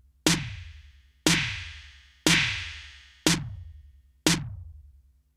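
Soloed snare sample in Native Instruments Maschine, hitting about once a second, each hit trailing a reverb tail. The tails grow longer and brighter over the second and third hits, then shorter again, as the reverb send level is turned up and back down.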